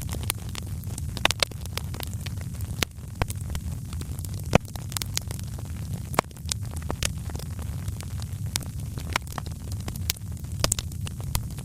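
Wood fire crackling: irregular sharp pops and snaps over a steady low rumble, with one louder pop about halfway through.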